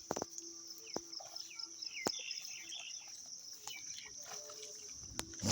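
Outdoor pond-side ambience: a steady high insect drone with short bird chirps and a few sharp clicks.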